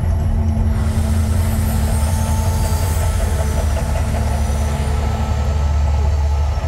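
The Mirage volcano show erupting: a loud, steady, deep rumble, with a rushing hiss of the flame jets that swells about a second in and fades after about five seconds.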